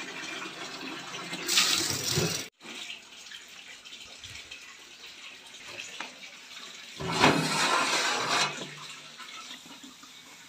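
Water sloshing as soaked rice is scooped out of a pot of water. After a cut comes the steady hiss of a large pot of boiling water for biryani, which swells into a loud rush of steam and boiling water for about a second and a half around seven seconds in as the lid comes off.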